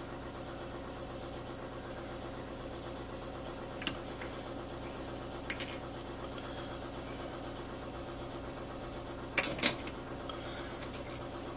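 Small metal clicks of a steel selector fork being handled and fitted onto the MZ ETZ 250 gearbox shafts: a faint tap about four seconds in, a sharper click a second and a half later, and a louder pair of clicks near the end. Under them runs a steady low mechanical hum.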